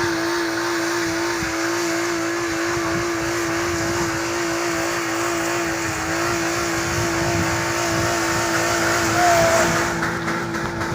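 Small hatchback car under way in low gear, its engine and drivetrain running at a steady pitch with a constant whine, over the rumble of the car on the road. A brief short squeak about nine seconds in.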